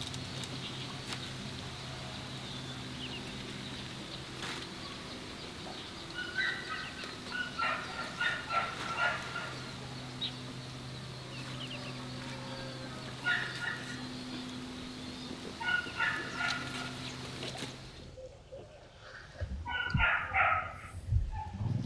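Domestic turkeys gobbling, several rapid rattling calls in short bouts.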